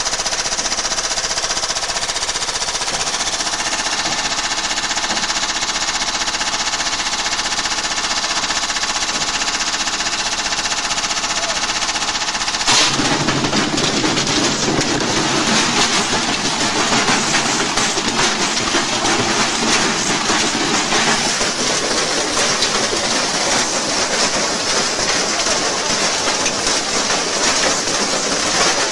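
Washing machine spinning with a stone inside, its drum hammering rapidly and the cabinet rattling violently as it shakes itself apart. About thirteen seconds in the sound changes suddenly to a rougher, more irregular clatter.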